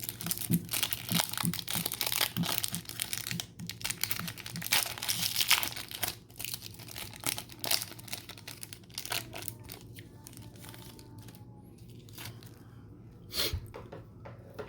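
A football trading-card pack torn open and its plastic wrapper crinkled. The rustling and crackling is dense for the first nine seconds or so, then dies down, with one short sharp crackle near the end.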